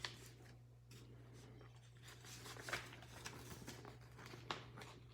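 Faint paper rustling and soft handling clicks as the pages of an instruction booklet are turned, a few short sharper rustles about a second apart near the middle and end.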